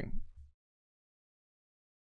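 A man's voice trailing off in the first half second, then dead silence with no room tone.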